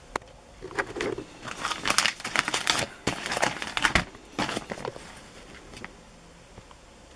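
Clear plastic wrapping on a firework pack crinkling and crackling as it is handled. It starts about a second in, is loudest in the middle and dies away near the end.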